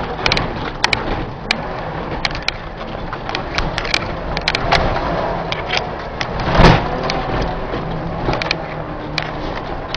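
Car driven hard across a dirt lot, heard from inside the cabin: engine running under loose tyre and gravel noise, with many sharp clicks throughout and one loud thump about two-thirds of the way through.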